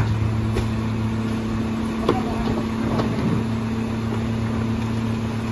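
Rear-loader garbage truck's engine idling with a steady hum, with a few sharp knocks as a wheeled plastic trash cart is handled at the hopper, the loudest about two seconds in.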